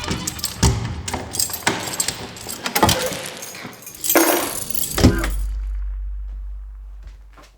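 Irregular clattering and knocking, with a rushing burst ending in a sharp bang about five seconds in, followed by a low rumble that fades away.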